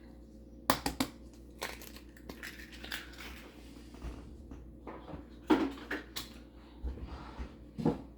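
Scattered sharp taps, knocks and crackles of baking ingredients being handled at a mixing bowl, as an egg is cracked into the batter. The loudest knocks come about five and a half and eight seconds in.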